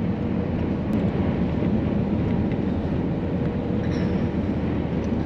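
Campervan driving along a country road: steady engine and tyre rumble.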